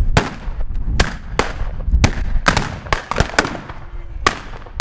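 Scattered blank shots from black-powder muzzle-loading muskets: about ten sharp cracks at irregular intervals, several in quick succession in the middle.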